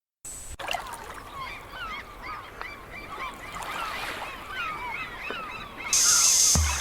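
A flock of birds calling over one another: many short cries that rise and fall in pitch. About six seconds in a loud hiss comes in over them, and there is a low thump just before the end.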